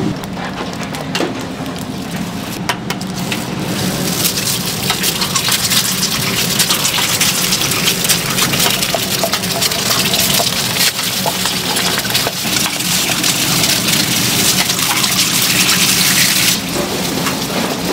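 Food sizzling on a hot griddle: a dense, steady sizzle that swells about four seconds in and drops back shortly before the end, with a few sharp clicks and knocks in the first seconds.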